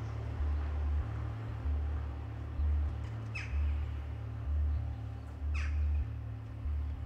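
A low pulsing drone, changing about every half second, under two short squawks that sweep sharply downward in pitch, about three and a half and five and a half seconds in.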